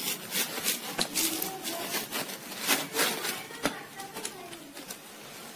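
A pizza-cutter wheel rolling through a crisp, butter-toasted sandwich on a plate, the toasted bread giving irregular crunchy crackles that thin out near the end.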